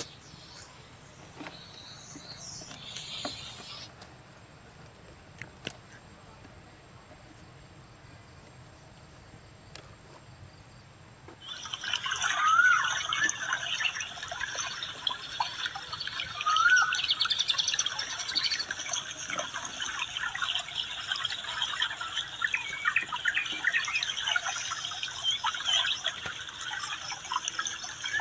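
Outdoor ambience: faint and mostly quiet with a few clicks at first, then about eleven seconds in a dense chorus of birds chirping starts suddenly and keeps on, with a couple of quick rising chirps standing out.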